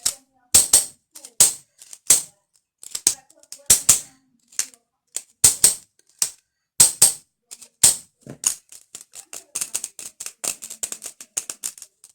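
Fingernails tapping on a pencil case: sharp, crisp taps at an uneven pace, turning into quicker, lighter tapping about eight seconds in.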